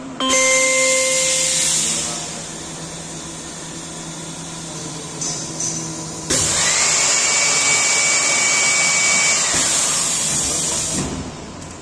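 Semi-automatic blister-forming machine cycling. A sudden loud rush of air with a steady whistle lasts about two seconds. After a quieter stretch, a second loud rush of air begins with a whine that rises and then holds steady for about four seconds before dying away.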